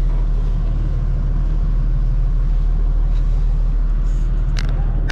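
A passenger ferry's engine running, a steady low drone with a deep, even hum. A few faint clicks come near the end.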